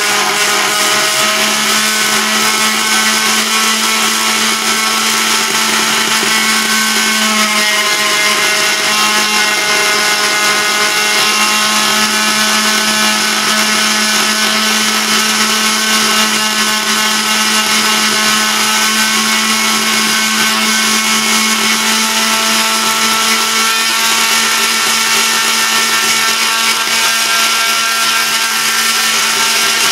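Deko oscillating multi-tool running steadily with its blade plunge-cutting into a thick slab of wood, a constant buzzing whine that shifts slightly in pitch a couple of times.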